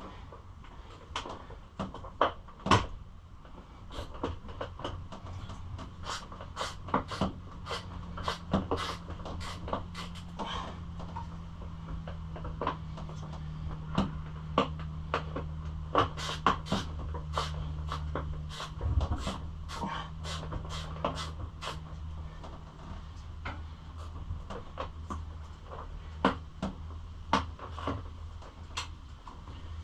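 Irregular clicks and knocks of plastic bodywork panels and fasteners being handled and fitted to a pit bike. A low steady hum sits under them through much of the middle.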